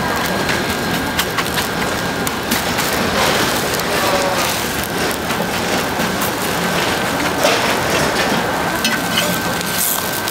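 Jeon, Korean batter pancakes, sizzling and crackling in oil on a flat griddle, a steady frying hiss with scattered light pops and clicks.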